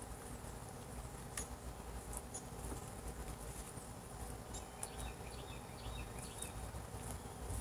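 Faint scattered clicks and small pops from fluffy slime being squeezed and kneaded in the hands. A few faint short high chirps come around the middle.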